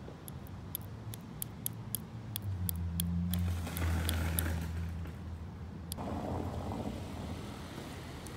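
A motor vehicle passes on the street, its low engine hum swelling a couple of seconds in and fading away after about six seconds. During the first few seconds there is a run of sharp light clicks, about three a second.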